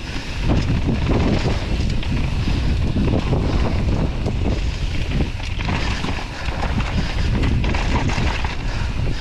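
Wind buffeting the microphone during a fast mountain-bike descent, over a low rumble of tyres on dry dirt trail and many small knocks and rattles from the bike.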